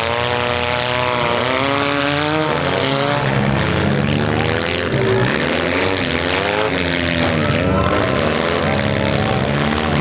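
Several small four-cylinder demolition derby car engines revving hard at once, their pitches rising and falling and crossing over one another.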